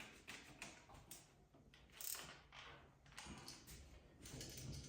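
Screwdriver tightening the hot-wire terminal screw on a GFCI receptacle: faint, scattered small clicks and scrapes of metal on the screw and device.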